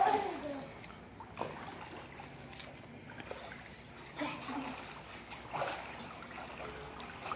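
Swimming-pool water lapping and splashing lightly as children move about in it, with a few short splashes about a second and a half, four and five and a half seconds in. A steady high-pitched whine sits underneath.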